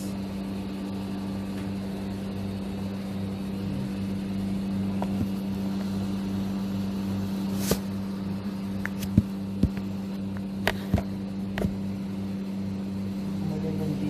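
A steady low mechanical hum from a kitchen appliance motor runs throughout, and a few sharp knocks and clicks come between about eight and twelve seconds in.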